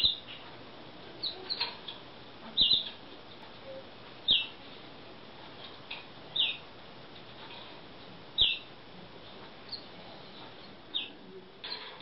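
Canaries giving short, high call notes that fall in pitch, one every second or two, rather than full song.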